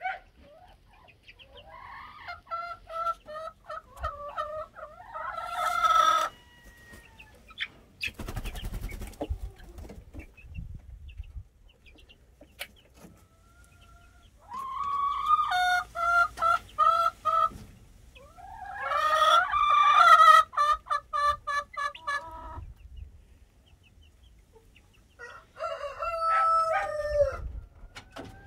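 Adult chickens calling loudly in four bouts of repeated calls, with crowing and clucking among them. A short burst of noise comes about eight seconds in.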